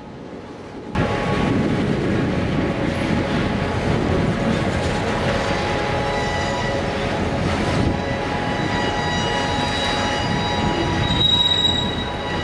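Freight train of covered hopper cars rolling along the rails with a steady rumble and squealing wheels. The sound starts abruptly about a second in, and the high squeal grows stronger in the second half, loudest near the end.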